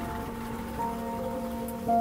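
Soft ambient background music of long held notes, over a steady hiss of a motorboat running across the water.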